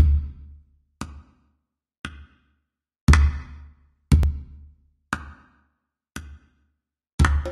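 Background music opening with a sparse drum beat: one sharp hit about every second, with a deep bass drum on some strokes.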